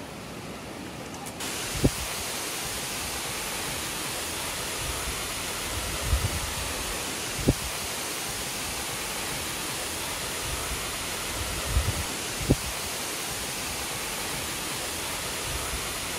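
A steady rush of water, starting suddenly about a second and a half in after a quieter stretch, with a few brief low thuds.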